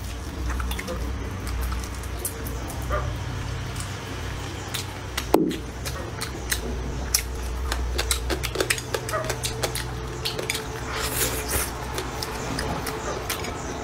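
Close-up eating sounds: chewing and mouth clicks, with chopsticks tapping the bowl, one sharper knock about five seconds in. A dog makes small sounds now and then, under a steady low hum.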